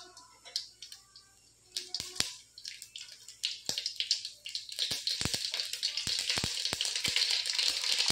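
Mustard seeds frying in hot oil in a steel kadai. Scattered pops at first; from about halfway through they build into a dense crackling sizzle as the seeds start to splutter.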